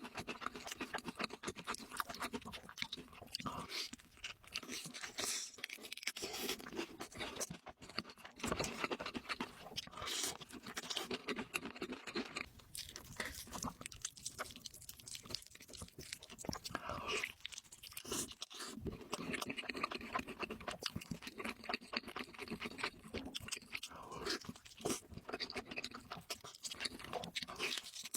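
Close-miked eating sounds: a person chewing food with crisp, crackling crunches throughout.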